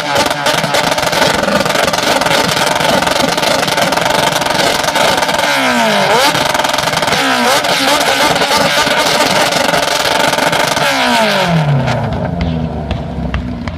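Several vehicle engines revving loudly together, with crackles. Three times an engine note sweeps down in pitch as the revs drop, and the din eases near the end.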